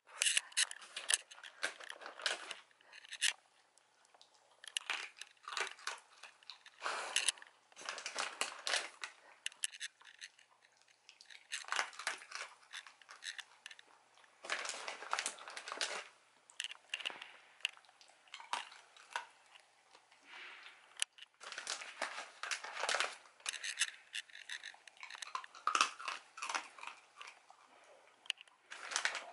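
A dachshund crunching and chewing hard dental treats, in bouts of rapid crunches a second or two long that recur every few seconds.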